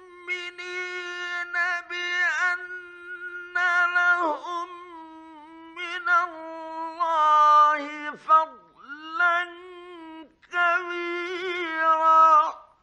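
A male reciter chanting the Quran in the melodic mujawwad style, holding long ornamented notes on a steady pitch with short breaths between phrases, in an old 1950s radio recording. The voice breaks off abruptly near the end.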